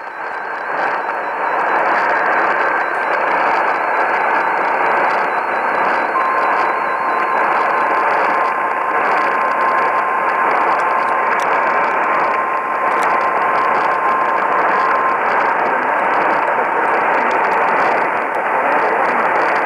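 AM radio reception of KAAY 1090 AM thick with static: a steady hiss and crackle across the band with faint whistling tones over it. A thin steady whistle comes in about six seconds in and stops about nine seconds later.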